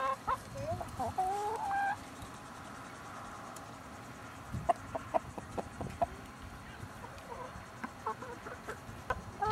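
Hens clucking: a few longer, rising calls in the first two seconds, then a run of short clucks from about halfway through.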